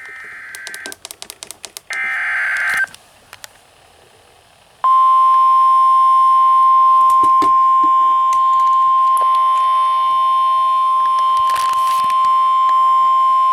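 NOAA Weather Radio Emergency Alert System signal: two short buzzy bursts of the SAME digital data header, then after a short pause the steady single-pitch 1050 Hz warning alarm tone held for about nine seconds, announcing a severe thunderstorm warning.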